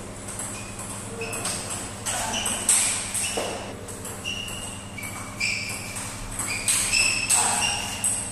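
Table tennis rally: the celluloid ball clicks off the bats and bounces on the table in a quick, uneven run of sharp pings, each with a brief ring.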